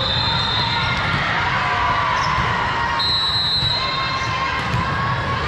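Busy sports-hall din from several volleyball games at once: balls bouncing and being struck, with distant voices and shouts echoing in the hall. A high, steady tone sounds briefly about three seconds in.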